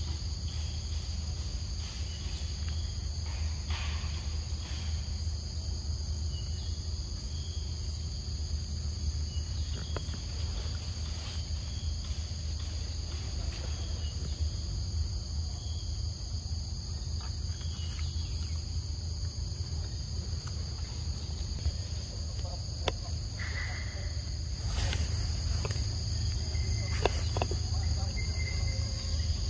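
A steady, high-pitched chorus of insects buzzing outdoors, over a low steady rumble, with a few short clicks and rustles near the end.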